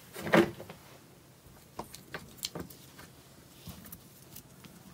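Rolls of washi tape being handled and set down: a louder clatter about half a second in, then a few light clicks and taps.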